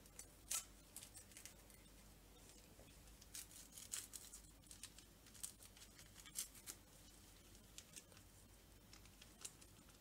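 Faint, irregular scrapes and taps of a wooden spoon stirring thick pudding in a saucepan.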